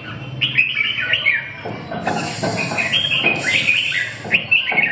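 Caged red-whiskered bulbuls singing: a rapid, continuous string of short chirping, whistled notes. Two stretches of rustling noise come in about two and three and a half seconds in.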